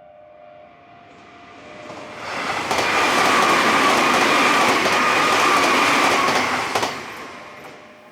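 A Nankai Main Line electric train passing over a railroad crossing: it builds up over about two seconds, runs loud for about four seconds with the rush and rattle of wheels on the rails, then fades away near the end.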